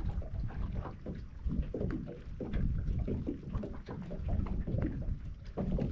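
Wind rumbling on the microphone aboard a small boat, with small irregular knocks and taps throughout.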